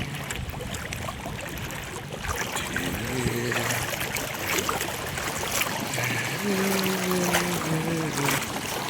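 River water rushing and splashing, a steady wash of noise dotted with small splashes. A person hums a few notes briefly about three seconds in, then again for about two seconds near the end.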